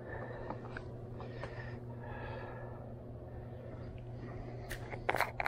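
A person breathing close to the microphone over a steady low hum, with a few sharp handling clicks near the end.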